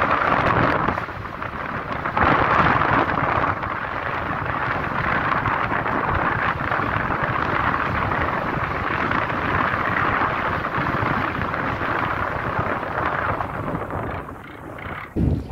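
Steady rushing wind and road noise on the microphone of a moving vehicle travelling along a road, with no clear engine note.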